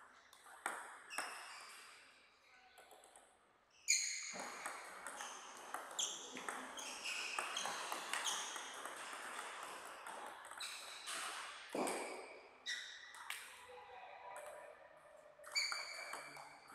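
Table tennis ball being struck with bats and bouncing on the table during play, a run of sharp ringing pings, thickest from about four seconds in, with a few isolated bounces before it.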